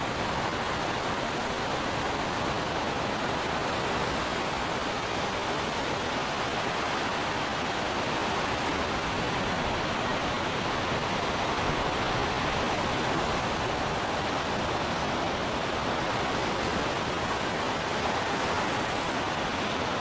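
Steady rushing water, an even unbroken wash of noise with no surges or pauses.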